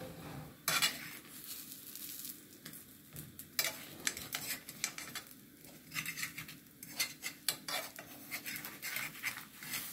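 Metal fork scraping and clicking against a non-stick frying pan as a roti is lifted and turned over, over a faint sizzle of the roti frying.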